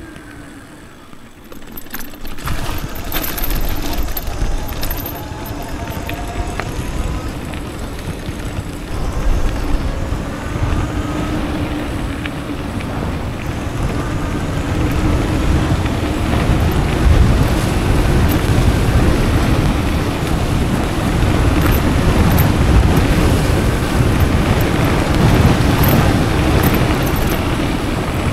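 Riding a homemade 72-volt, 3000-watt electric downhill bike: tyre rumble and wind on the microphone, with a faint motor whine rising in pitch during the first half. It starts quiet, then grows louder and rougher from about halfway on the dirt trail.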